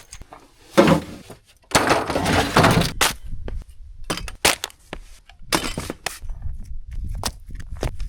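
Irregular clattering, knocks and crunching of camping gear being handled and packed up, with a longer scraping burst about two seconds in.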